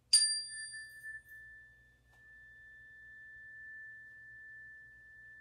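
Meditation bell struck once, its high overtones fading within about a second while a single clear tone rings on steadily: the signal to begin a mindful-walking exercise.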